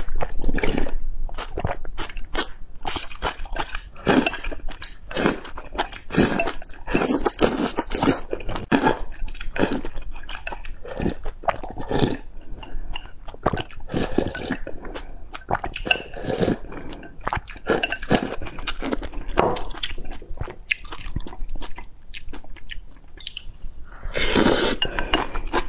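Close-miked mouth sounds of a person drinking broth straight from a bowl: a long run of gulps, sips and swallows. Near the end comes a louder slurp as noodles are sucked in.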